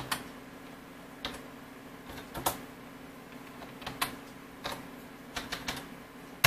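Computer keyboard keys being pressed in short, irregular clicks, a G-code command being typed in again after a typo, over a faint steady hum.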